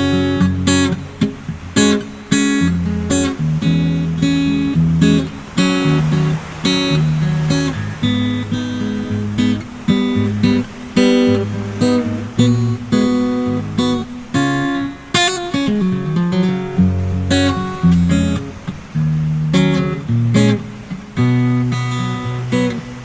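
Background music played on acoustic guitar, with strummed chords and plucked notes.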